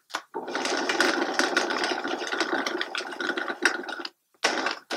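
High-speed blender running to shred soaked soy curls. It runs steadily for about four seconds, stops, then gives a short burst near the end.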